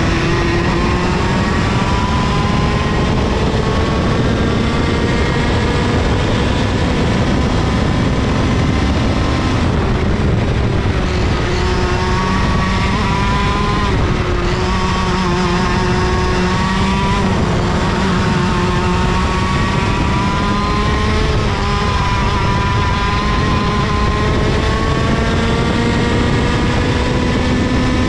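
IAME KA100 100cc two-stroke kart engine run hard around a track. Its pitch climbs steadily along each straight and drops back sharply several times as the throttle comes off for the corners.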